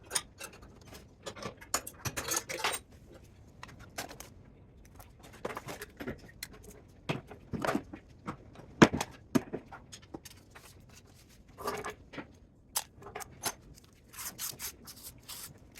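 Irregular metallic clinks, taps and scrapes of hand tools and metal parts being handled while a spot welder is taken apart, with one sharp knock about nine seconds in.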